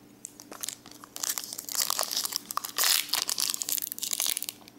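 Shiny booster pack wrapper crinkling as it is picked up and handled, in a run of crackles from about a second in until near the end.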